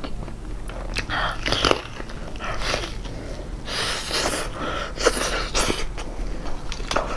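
Crunching and chewing of a crispy breaded fried chicken cutlet, bitten into and chewed in about four bursts of crunch roughly a second apart.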